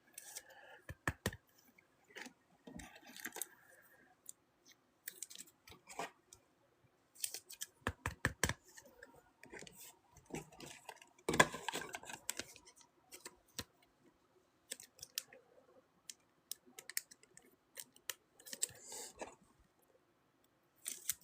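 Scattered light clicks and taps with a few short rustles, from hands working at a tabletop.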